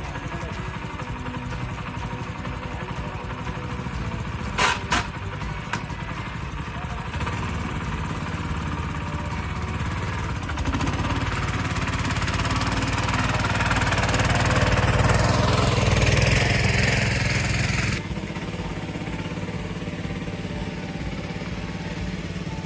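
Tractor engine running steadily while hauling a trolley of soil, with two sharp clicks about five seconds in. Partway through a louder rushing noise builds over the engine and stops suddenly a few seconds before the end.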